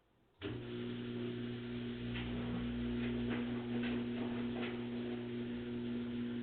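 Samsung WF45K6500AV front-load washing machine starting up abruptly about half a second in, then running with a steady motor hum and a few light ticks. It runs without the loud squeak it made on its pedestal.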